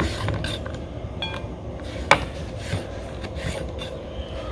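Raw sweet potato being cut and pushed about on a wooden cutting board: rubbing and rasping strokes, with one sharp knock about two seconds in.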